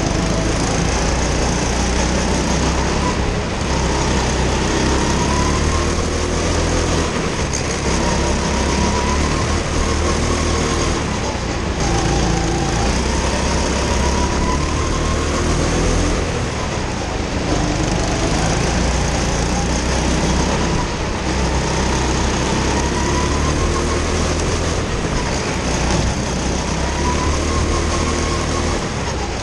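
Go-kart's small engine running hard on a lap, its pitch rising under acceleration and dropping into the corners every few seconds, with a steady rush of wind and track noise over the onboard camera.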